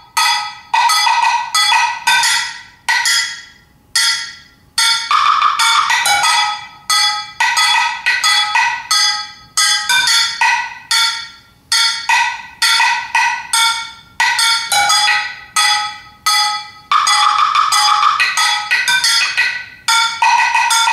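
Solo percussion on resonant found metal objects struck with sticks, each hit a bright metallic clang that rings and fades. The strokes come in irregular, driving groups, with a few dense runs of rapid hits.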